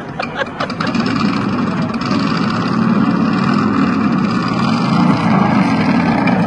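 A motorcycle engine running steadily with a low, even rumble, getting louder about a second in.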